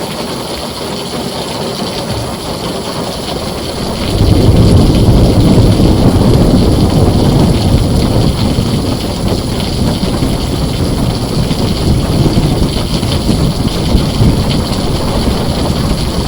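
Heavy rain on a tin roof as a steady hiss. About four seconds in, a long, low rolling rumble of thunder comes in suddenly and keeps rolling to the end.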